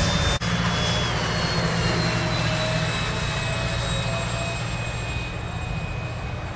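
Electric ducted fan of a Freewing L-39 Albatros 80 mm EDF model jet whining in flight overhead. Its pitch falls slightly and the sound fades as the jet moves away.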